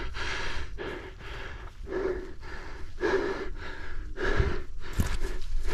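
A person breathing hard close to the microphone, quick puffing breaths about twice a second, with one sharp thump about five seconds in.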